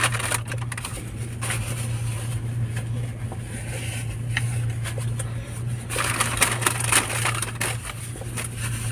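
A person chewing and crunching a crispy chicken wrap close to the microphone, in irregular crunchy bites with a denser burst about six seconds in, over a steady low hum.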